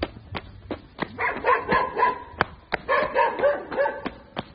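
Footsteps on gravel, about three a second, with a dog barking over them in two quick runs of short barks starting about a second in.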